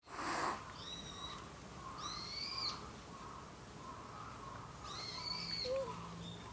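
Three drawn-out, high-pitched animal calls, each about half a second long, arching up and holding before they drop: one about a second in, one at two seconds, one after five seconds. A faint low murmur of other small sounds lies under them.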